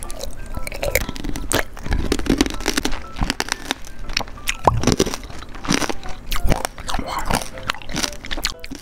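Hardened sugar shell of a strawberry tanghulu being bitten and chewed right at a small microphone held to the mouth: an irregular run of crisp crunches.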